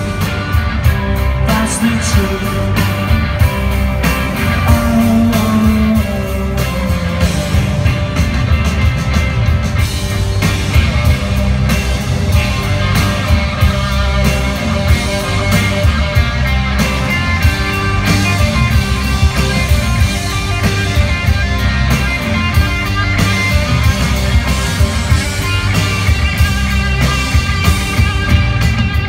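Live rock band playing electric guitars, drums and keyboards, heard from the arena audience, loud and continuous.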